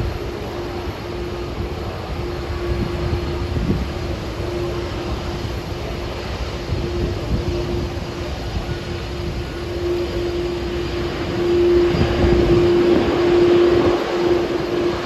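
Jet engines of a Boeing 737-800 airliner (CFM56-7B turbofans) running on or near the runway: a steady rumble with a constant hum, growing louder about twelve seconds in.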